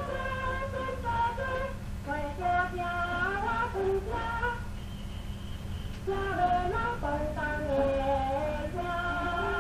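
A woman singing a Taiwanese Hokkien popular song with instrumental accompaniment, transferred from an old Nitto 78 rpm record. A steady low rumble and hum run underneath the voice.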